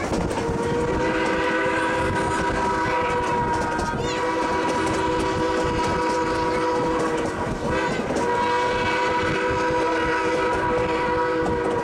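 Narrow gauge steam locomotive's chime whistle sounding three long blasts, several tones at once, with short breaks between them, a grade-crossing warning, over the steady rumble and clatter of the train on the rails.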